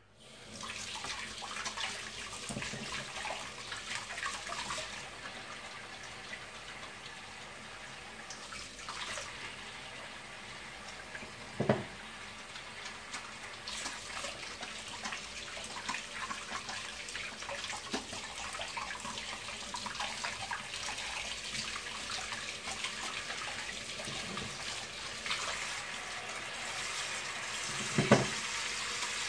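Kitchen tap turned on and running into a stainless steel sink. Two sharp knocks against it, one about twelve seconds in and a louder one near the end.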